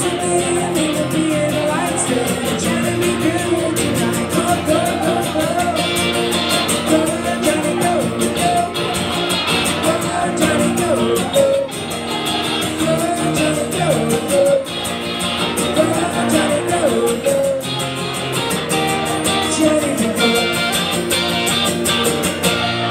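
Live solo acoustic guitar strummed steadily and fast in a rock-and-roll rhythm, with a man singing into a microphone over it.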